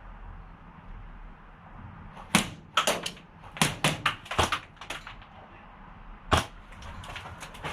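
Airsoft gunfire: an uneven string of about eight sharp single cracks from two to five seconds in, then one more a little after six seconds.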